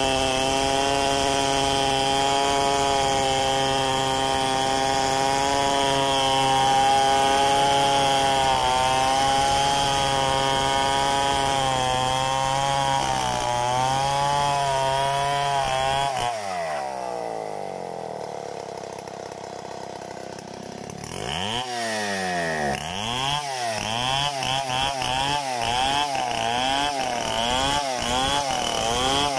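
Large two-stroke chainsaw ripping lengthwise through a molave log, running steadily under load. About sixteen seconds in it drops to a quieter idle for several seconds, then revs up again, its engine speed rising and falling over and over as it cuts back into the wood.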